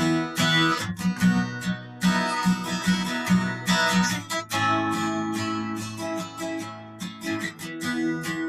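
Acoustic guitar music, strummed and plucked chords with a steady rhythm.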